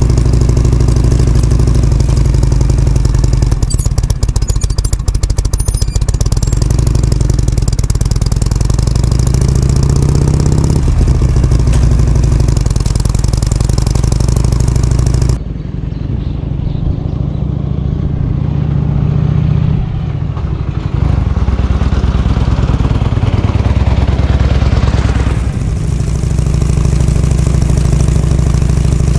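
Harley-Davidson Shovelhead FLH's air-cooled V-twin engine running steadily as the motorcycle is ridden, its pitch rising about ten seconds in. About halfway through the sound turns quieter and duller, then returns to its earlier fuller level a few seconds before the end.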